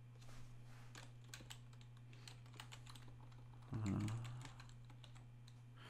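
Computer keyboard typing: a run of quick, faint key clicks over a steady low hum, with a brief low murmur of voice about four seconds in.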